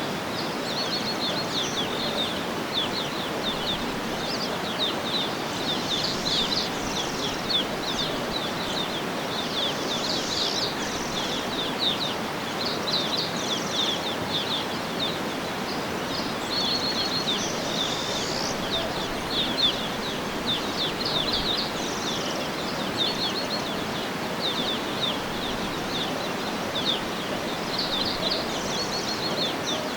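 Birds chirping in quick repeated runs of short high notes over a steady, even rushing background noise of outdoor ambience.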